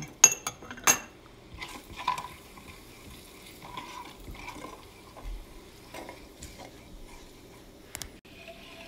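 A spatula stirring and scraping whole spices (a cinnamon stick, black peppercorns, cardamom) around hot oil in a nonstick frying pan, with faint sizzling underneath. There are a few sharp clicks in the first second.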